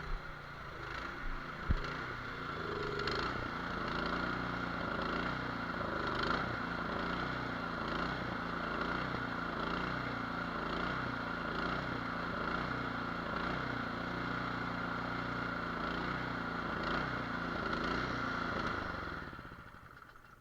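Cub Cadet snowblower's 208cc single-cylinder engine running steadily. It builds up over the first couple of seconds and dies away near the end.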